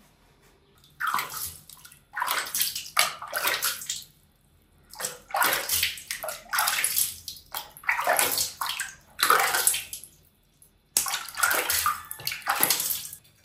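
Water splashing and sloshing in a plastic basin as a hand scoops and swishes through it, in bursts of a second or two with short pauses between.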